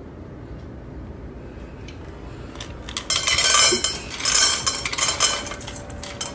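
Dry kibble rattling and clinking in a stainless steel pet bowl under an automatic feeder. It starts about three seconds in, comes in two dense spells, then thins out.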